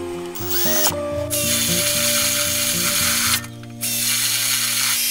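Right-angle drill boring a spade bit through a wooden stud, running at speed in two stretches with a short pause about three and a half seconds in.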